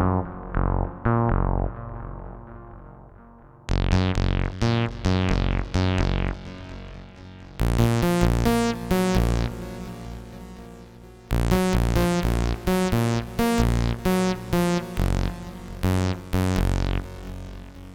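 Korg OPsix FM synthesizer playing a raw sawtooth patch in short plucked note phrases, each phrase fading away before a brighter one starts again about 4, 7.5 and 11 seconds in.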